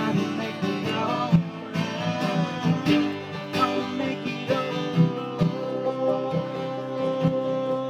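Live bluegrass-style band: a man singing over strummed acoustic guitar and picked banjo, holding one long note through the second half.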